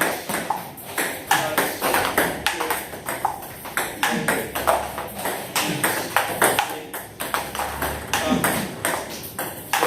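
Table tennis balls being struck by rackets and bouncing on the table in rapid multi-ball practice: a quick, irregular stream of sharp clicks with no pause.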